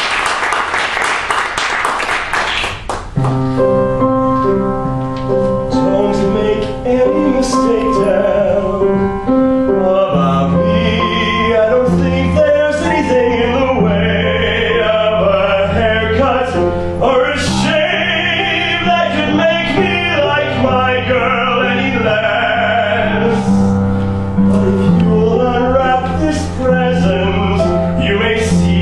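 Audience applause dies away about three seconds in. Held chords of instrumental accompaniment begin, and operatic singing with vibrato comes in over them about ten seconds in.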